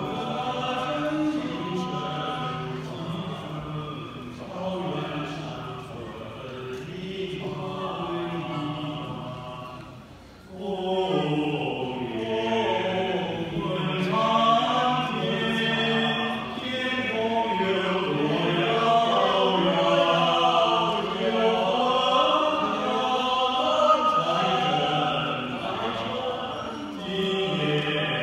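Male vocal group of six singing together in harmony, with sustained notes. The singing is softer for the first ten seconds, nearly stops briefly, then comes back in fuller and louder.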